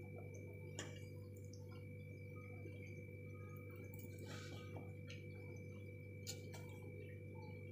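Faint sounds of two people eating noodles with forks: a few soft clicks and smacks over a steady low hum.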